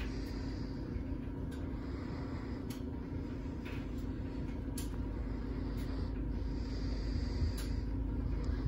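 A 42-inch Hampton Bay Littleton ceiling fan running, its motor giving a steady hum, with light clicks at irregular intervals of about a second.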